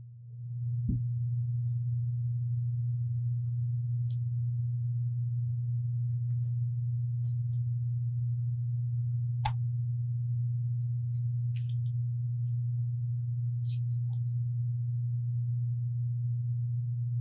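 A steady, low, pure-sounding electrical hum, with a few faint light clicks and taps scattered over it.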